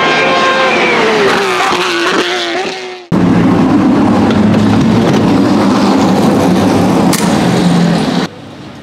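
A race car's engine note falling steadily in pitch for about three seconds. Then, after a sudden cut, the Aston Martin Vantage GT3's Mercedes-AMG twin-turbo V8 runs loud and steady at idle, dropping away abruptly near the end.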